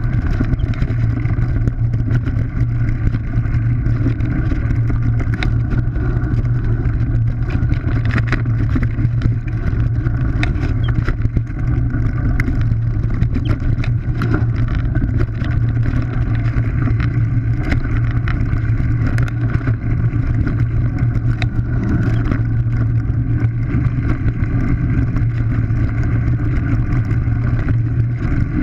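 Mountain bike descending a rocky dirt trail, heard through an action camera mounted on the rider or bike: a steady low drone of wind and tyre rumble, with frequent small clicks and rattles as the bike goes over stones.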